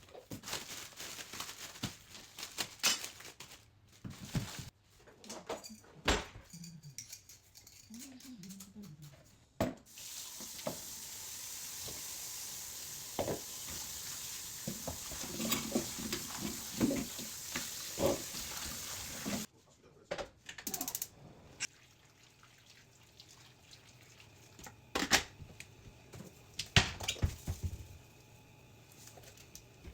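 Kitchen tap running in a steady stream for about ten seconds, from about ten seconds in, then shut off abruptly. Before and after it come scattered clinks and knocks of dishes and food being handled.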